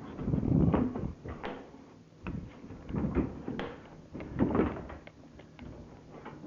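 A dishwasher being shoved into its under-counter cabinet opening: four or so low scraping, knocking pushes with sharp clicks between them, quieter near the end.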